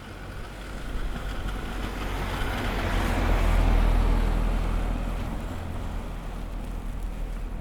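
A motor vehicle passing on a snowy street: engine rumble and tyre hiss swell smoothly to a peak about halfway through, then fade.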